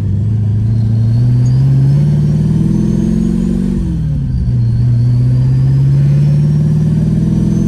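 Vortech V3-supercharged Fox-body Mustang engine accelerating hard, heard from inside the cabin. The engine note climbs through one gear, drops at a manual gear shift about four seconds in, then climbs again in the next gear, with a faint high supercharger whine rising along with it.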